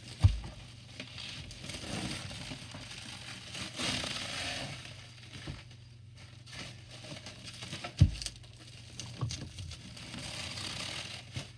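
Plastic bubble wrap being unwound and pulled off a radio by hand, crinkling and rustling unevenly, with a couple of sharp bumps against the desk, the louder one about eight seconds in.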